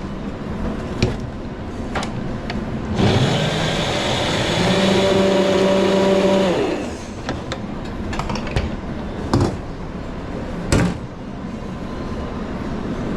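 Electric blender running for about four seconds, starting about three seconds in, blending a bulgogi and gochujang gravy. A few sharp knocks come before and after it.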